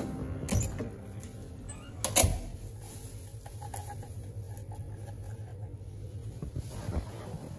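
A hotel room key card is handled and slid into the wall-mounted power slot by the door, giving a few clicks and knocks, two of them louder, over a low steady hum.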